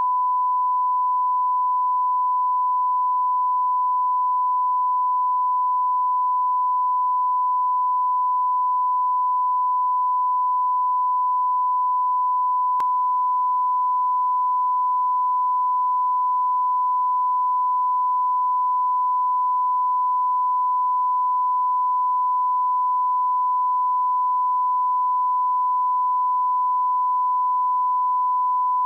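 Continuous 1 kHz sine-wave test tone, one steady pitch at constant level, with no break. It is the reference line-up tone that goes with a television test card.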